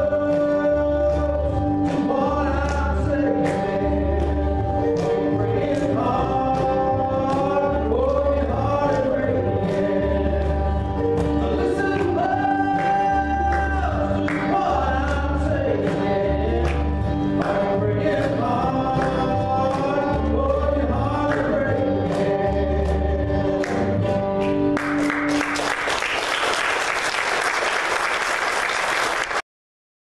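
A man singing a gospel country song to his own acoustic guitar. The song ends about 25 seconds in, and applause follows until it cuts off abruptly near the end.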